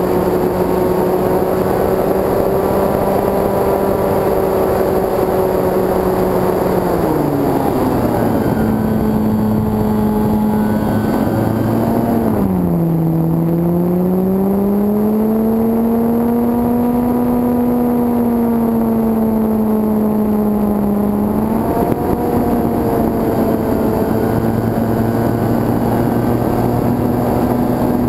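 Electric motor and propeller of an E-flite Carbon-Z Yak 54 RC plane in flight, heard from the onboard camera: a steady drone whose pitch follows the throttle, dropping about a quarter of the way in, dipping again near the middle and climbing back, then stepping up about three-quarters through. Rushing air noise runs under it.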